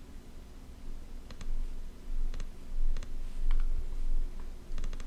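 Computer mouse button clicking several times, some clicks in quick pairs, over a low rumble.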